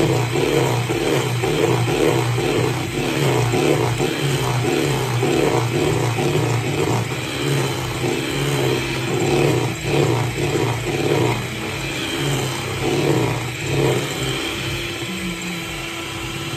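Electric hand mixer whirring as it whips a chocolate mousse mixture, under background music with a steady beat.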